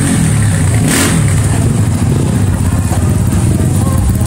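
Motorcycle engine running and revving as the bike pulls away with two riders aboard, with a short sharp noise about a second in.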